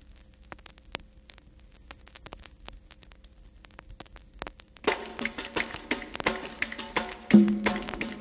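Record surface noise (scattered clicks and crackle over a faint hum) for the first few seconds, then about five seconds in the instrumental intro of a calypso song starts suddenly, with quick, steady, jingling percussion and, near the end, low notes entering underneath.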